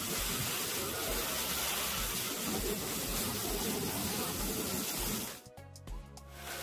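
Pressure washer spray hissing against wooden deck boards, blasting off built-up dirt and mildew, over background music with a steady beat. The spray cuts off suddenly about five seconds in.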